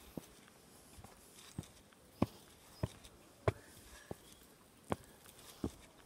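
Footsteps on a hard path: a row of short, sharp steps about every two-thirds of a second.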